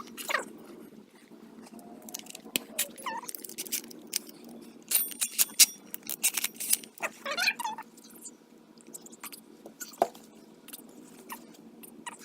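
A drill-driven 3.5-inch hole saw cutting through the steel wall of a gun safe: irregular scraping, clicks and short squeaks, loudest about five to seven seconds in.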